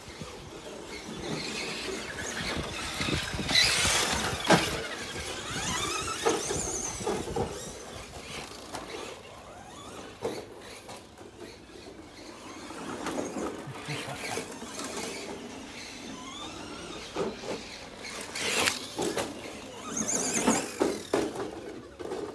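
Electric Tamiya RC cars running on 2S LiPo, their motors and gearboxes whining up and down with the throttle, with tyres scrabbling over dirt and paving. The loudest runs are about four seconds in and again near the end.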